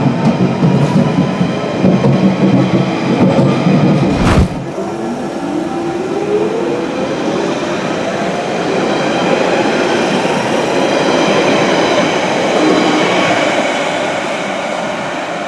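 Onboard a London Underground 1992 stock tube train as it pulls out, motor whine climbing. After a sudden cut about four seconds in, a 1992 stock train departing a platform, its traction motors whining up in pitch as it accelerates away, easing off near the end.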